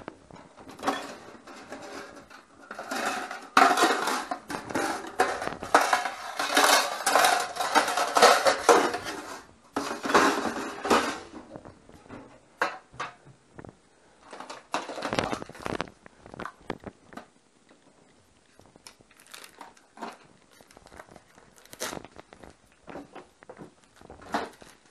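Kitchenware clattering as it is rummaged through and lifted out of a cabinet: a dense run of knocks and scrapes for about ten seconds, then scattered knocks and clicks.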